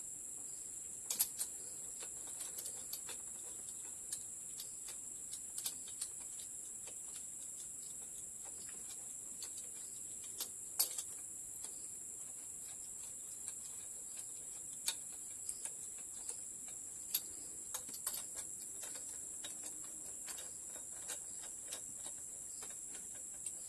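Sporadic light clicks and taps of hand work on an engine during cylinder head reassembly, irregularly spaced, over a steady high-pitched hiss.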